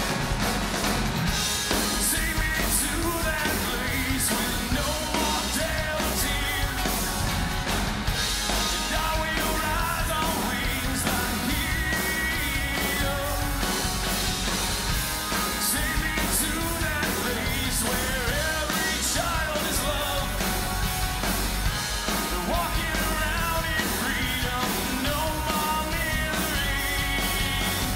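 Live rock band playing an instrumental passage: electric guitar lead lines over a full band, loud and steady.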